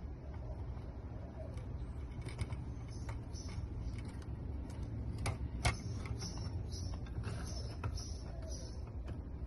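Small clicks and taps of graphics-card parts being handled and fitted back together as the cooler is reassembled, the sharpest click a little over halfway through, over a steady low hum.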